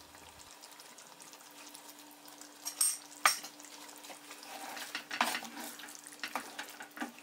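A cooking utensil knocking and scraping against a pan of chicken curry as it is stirred over the heat: two sharp knocks about three seconds in, then a run of lighter clicks and scrapes, over the faint sound of the curry cooking.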